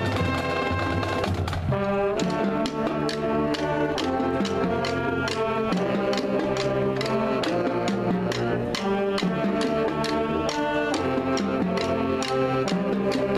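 High school marching band playing: saxophones and brass holding chords over a steady drumline beat of snare and bass drums, moving to a new chord about two seconds in.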